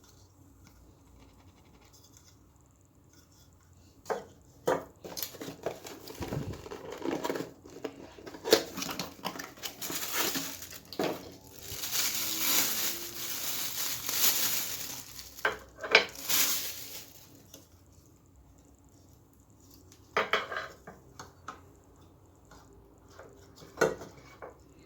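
Packaging being unpacked by hand: rustling, crinkling and tearing of wrapping, with knocks and clatter as hard parts are handled. It starts about four seconds in, runs busily until a few seconds past the middle, then comes back in a few short bursts near the end.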